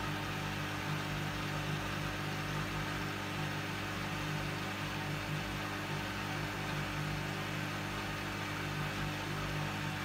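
Hoover front-loading washing machine's motor humming steadily as the drum turns the laundry at tumbling speed: the machine is still trying to balance an unbalanced load before its final spin.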